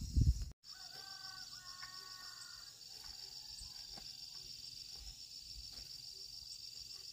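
Insects trilling steadily in a high, rapidly pulsing drone, with a bird calling for about a second and a half starting about a second in. Leaves and vines rustle loudly at the very start, before a brief break in the sound.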